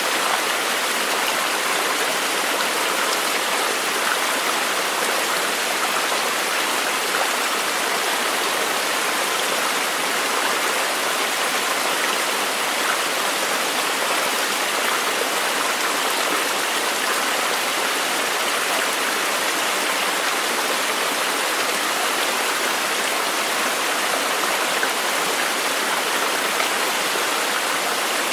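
Running water rushing steadily, an even hiss and splash with no breaks.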